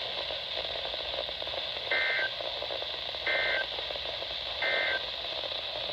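Emergency Alert System end-of-message data bursts: three short, identical two-tone digital squawks about 1.3 seconds apart, signalling the end of the alert. A steady hiss from the radio receiver runs underneath.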